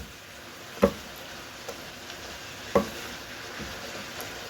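Vegetables and gizzard sizzling steadily in a frying pan as they are stirred, with a utensil knocking sharply against the pan twice.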